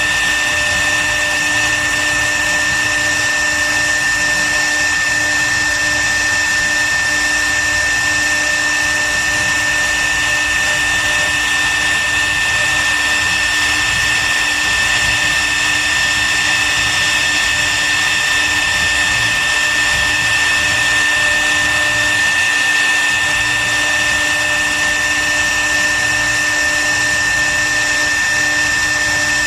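CNC router spindle running at high speed with a steady high-pitched whine over a rushing noise, as it carves wood.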